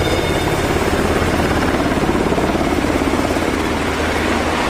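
UH-60 Black Hawk military helicopter flying low overhead: steady loud rotor chop over turbine noise.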